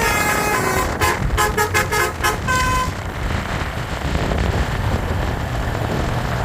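Basuri 'telolet' multi-tone bus horn playing a melody that ends in a quick run of short notes and stops about three seconds in, followed by bus engine and road traffic rumble.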